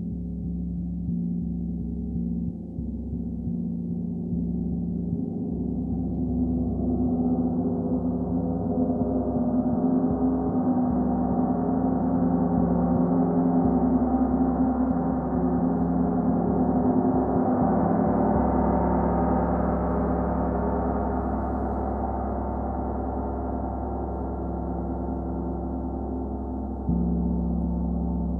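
A 36-inch Metatron gong played with Olli Hess moveline felt mallets in the 60 mm size: a sustained, shimmering wash with a deep steady hum underneath. Its bright overtones build to a peak about halfway through and then slowly ease off, and a fresh stroke near the end lifts the level again.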